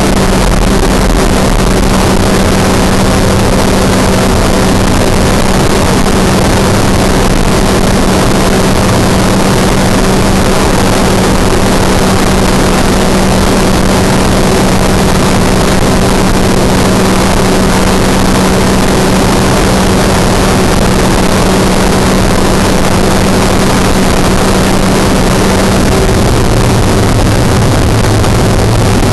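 Open-cockpit ultralight aircraft in flight: a steady engine drone under loud wind rush. Near the end the drone's pitch drops lower.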